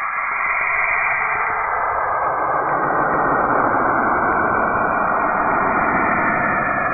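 Space sonification presented as the sound of Saturn: signals from the planet's magnetic field converted into audio. It is a dense, steady hiss and hum that swells slightly in the first second and fills in lower after about two and a half seconds.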